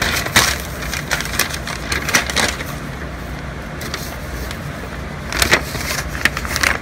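Paper crackling and rustling as a sealed envelope is torn open and the note inside is pulled out, in irregular snaps and scrapes with a few sharper tears.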